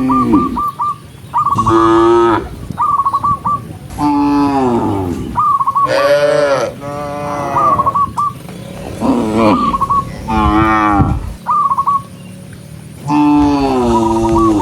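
Cattle mooing, one long call after another and sometimes overlapping. Between the moos there are short runs of quick high chirps.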